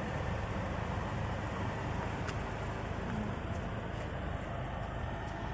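Steady motor-vehicle noise: an engine's low rumble mixed with road traffic.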